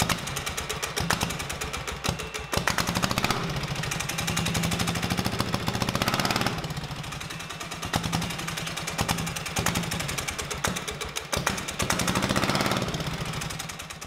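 Small diesel engine of a homemade mini bike running with a rapid, even knocking beat. It grows louder and softer several times as the revs change, with brief dips about two and a half seconds in and again near eleven seconds.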